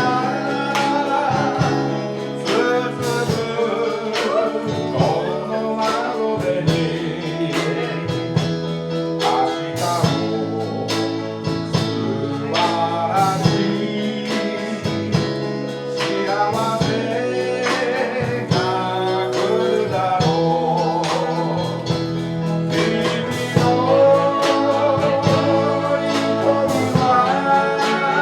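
Live band music: a sung melody over guitar chords with a steady beat of percussive hits.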